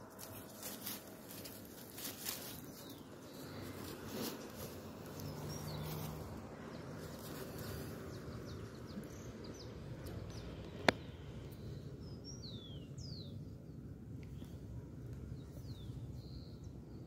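Faint outdoor ambience: small birds calling with short falling chirps, mostly in the second half, over a steady low background noise. Crackling, like dry leaves being stepped on or handled, in the first few seconds, and one sharp click about eleven seconds in.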